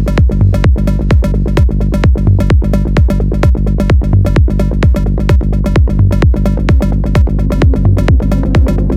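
Electronic dance music with a steady kick-drum beat about twice a second under sustained synth tones.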